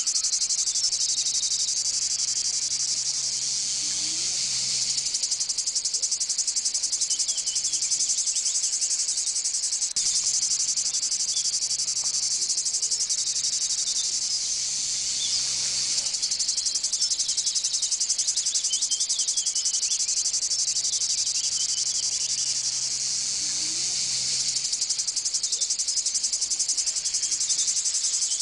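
A dense, steady chorus of insects: a high-pitched, rapid trill.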